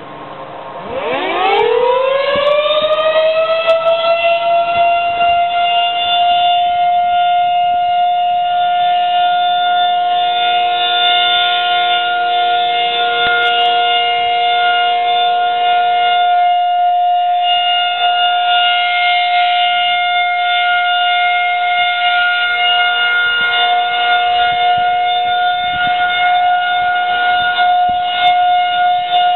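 Federal Signal 2001-SRN electromechanical outdoor warning siren starting up about a second in, its pitch rising quickly and then holding one steady tone: the steady "Alert" signal sounded for a monthly siren test.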